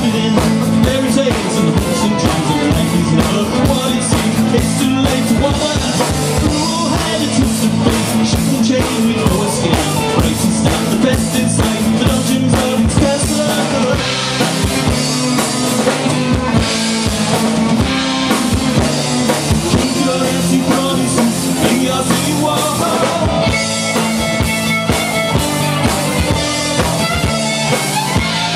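Folk-rock band playing live: fiddle, acoustic and electric guitars and a drum kit, with a steady drum beat throughout.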